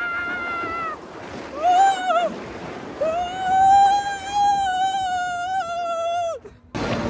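A person screaming on a snow-slide sled ride: long held high cries, a short one about two seconds in and a longer one of about three seconds that wavers and breaks off suddenly near the end.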